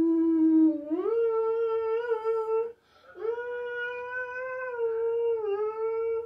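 A girl making weird, drawn-out vocal sounds: long held notes, the first stepping up in pitch about a second in, then after a short break a second long note held for about three seconds.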